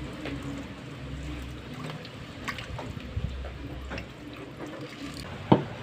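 Water trickling and splashing in a goldfish pond, with a few brief sharper splashes, the loudest near the end.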